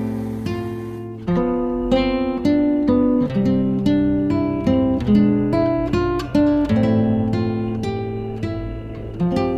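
Background music: acoustic guitar picking a melody, notes plucked a few times a second.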